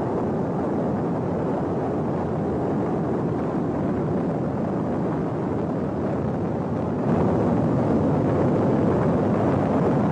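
Spaceship engine rumble in an animated space scene: a steady, loud rumbling noise that grows a step louder about seven seconds in.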